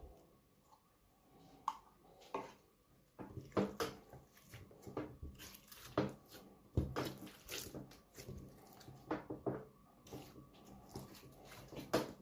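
Slime being squished and pulled by hand, making irregular sticky clicks and squelching crackles.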